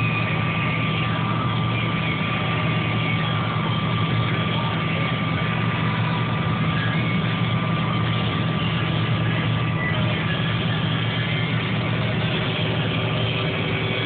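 John Deere combine harvester running steadily while cutting wheat: a constant low engine and threshing drone with a thin steady whine above it.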